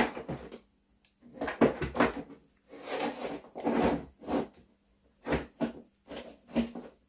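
Supplies being put away in a drawer: an irregular run of knocks, clatters and rustles, with pauses between them.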